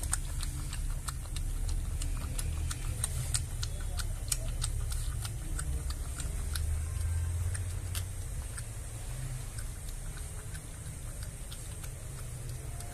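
A puppy lapping milk from a bowl: rapid, irregular wet clicks of the tongue, several a second, thinning out near the end, over a low steady rumble.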